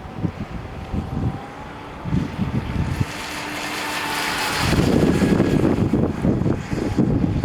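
Radio-controlled electric boat with a 2600kv motor whining as it runs, growing louder and rising about three seconds in. From about the middle on, heavy wind buffeting the microphone.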